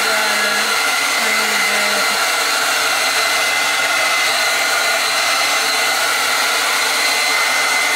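Handheld hair dryer with a comb nozzle running steadily on hair: an even rush of air with a steady high motor whine over it.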